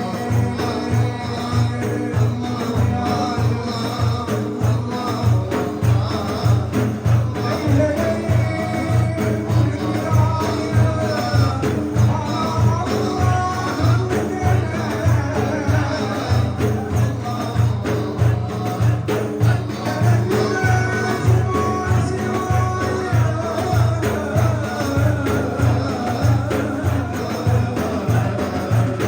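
Turkish Sufi devotional hymn (ilahi): singing over a steady, regular hand-drum beat.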